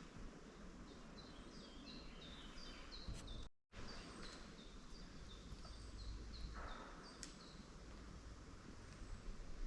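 Faint songbird singing: a long run of short, quick high notes repeated every few tenths of a second, over faint background noise. The sound cuts out completely for a moment about three and a half seconds in.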